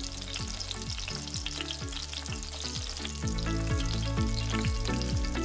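Coconut-and-panko-breaded shrimp shallow-frying in hot oil in a cast iron skillet: a steady crackling sizzle. Background music with a regular low beat runs underneath and grows a little louder about three seconds in.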